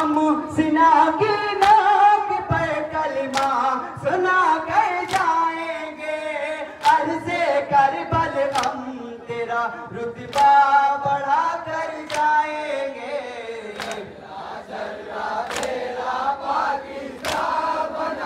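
Male voices chanting a noha in unison, a lament recited through microphones with the group joining in. Sharp slaps of matam, men striking their bare chests, cut through in a steady beat about every one and a half to two seconds.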